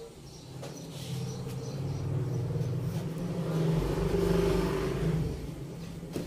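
A motor vehicle's engine passing by, growing louder to a peak about four seconds in, then fading away.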